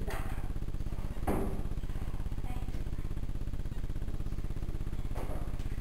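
Fast, steady ticking buzz in the recording, a fault in the audio track, running under everything, with a few brief louder sounds over it.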